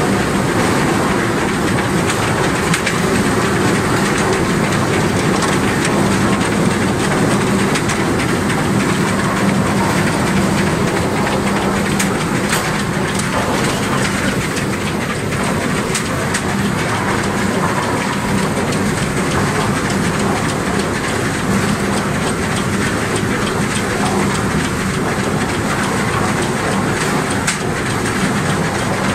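Tooth roller log debarker running with a load of logs: a loud, steady clatter of logs knocking and rattling against the spiked rollers as the bark is stripped off, over a steady motor hum.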